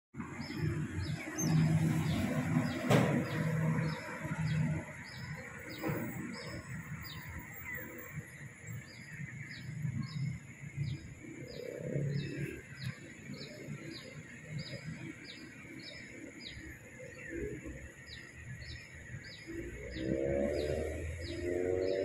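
An animal's short, high, falling chirp, repeated steadily about twice a second. A lower, pitched call comes in near the end.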